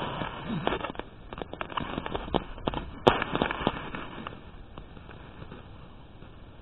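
Rustling of grass and plants with handling noise from the moving phone: a run of irregular sharp crackles and clicks, thick in the first half and thinning out towards the end.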